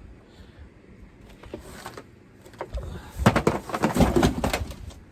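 Close handling noise: a loud flurry of rustling, scraping and bumping for about two seconds, starting about two and a half seconds in.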